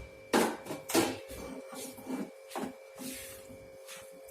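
A utensil stirring and scraping a thick jaggery, ghee and flour mixture around a pan in irregular strokes, the loudest in the first second.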